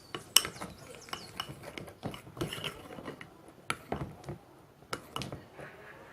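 A utensil scraping and tapping against a bowl as thickening slime mixture is stirred, with irregular rubs and several sharp clicks.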